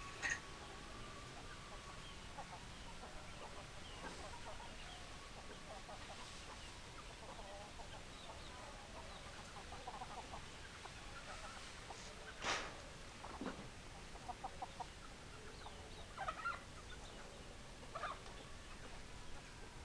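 Chickens clucking on and off, short soft calls scattered over a faint steady hiss, with a few louder sharp sounds standing out.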